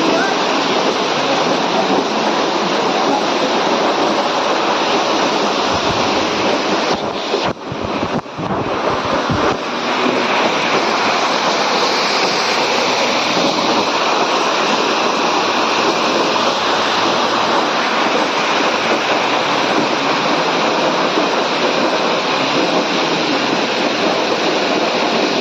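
Loud, steady rush of a fast-flowing mountain torrent. About seven seconds in, wind buffets the microphone for a couple of seconds and the water briefly drops out.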